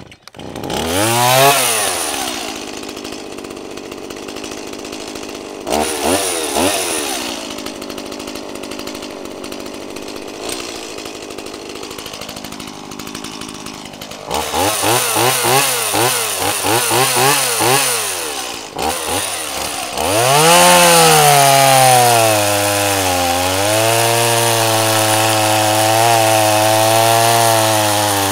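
Stihl MS 170 two-stroke chainsaw starting up, revving and idling, then run at high revs from about twenty seconds in, with the pitch sagging and recovering as it cuts into a log. It is a test cut with a freshly hand-filed chain.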